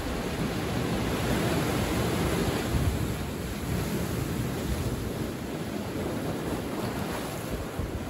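Ocean surf: waves breaking on rocks and washing up a sandy beach, a steady rush that swells about a second in and eases slightly after about three seconds.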